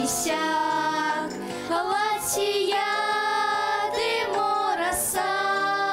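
A woman and two girls singing a Mordovian folk table song together, holding long notes.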